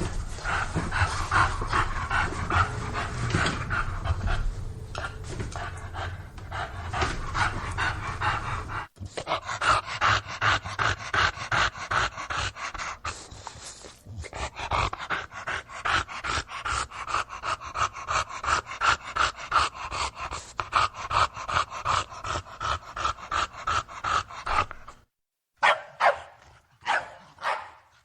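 English bulldog panting in quick, rhythmic breaths, several a second. The breathing breaks off abruptly about nine seconds in and again briefly near the end.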